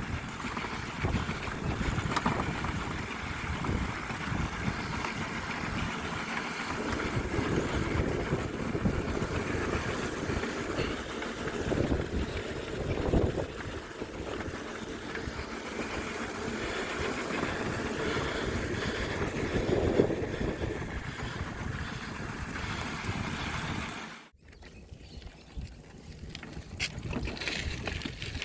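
Wind buffeting the microphone with a gusty low rumble. About 24 seconds in it cuts off abruptly to a much quieter hiss with faint crackles.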